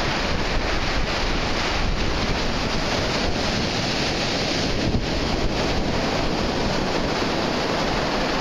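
Sea surf breaking and washing up the beach, with strong wind noise on the microphone; a steady rush of noise with no distinct single crash.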